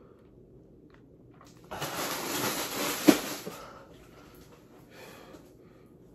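A man's long, forceful breath out through the mouth, a loud hiss lasting about two seconds with a brief sharp sound near its end, then a fainter breath: his lips are burning from extremely spicy noodles.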